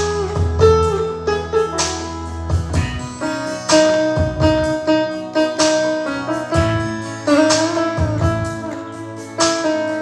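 Instrumental break of a pop ballad: a guitar plays the melody over keyboard and a low bass line, with a steady beat and no singing.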